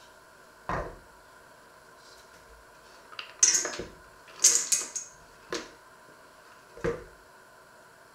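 Small hard pieces scraped off a wooden chopping board into a stainless-steel colander, clinking and rattling on the metal in a burst partway through, with a few single knocks of board and colander before and after.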